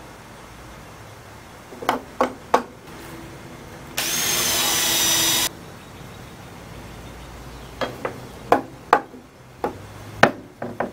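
Cordless drill running for about a second and a half, driving a screw into the wooden frame. Before it come three sharp knocks of tools and wood, and after it about six more.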